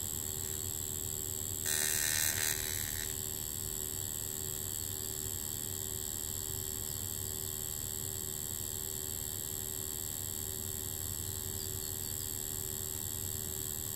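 Steady electrical hum from a high-voltage rig running current through magnetite sand along a glowing arc path. About two seconds in there is a louder buzz lasting about a second.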